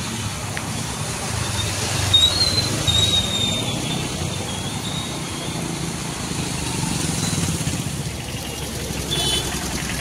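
Motorcycle and car engines running as they drive through a flooded street, with the steady hiss of water washing under the tyres. A few thin high whistling tones come in about two to four seconds in.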